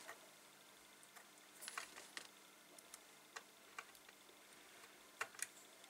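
Faint scattered clicks and ticks of a glass radio vacuum tube's pins being worked into its socket on a metal chassis, over near-quiet room tone.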